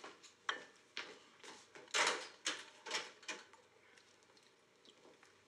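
A run of sharp clinks and knocks, about two a second, trailing off after about three and a half seconds.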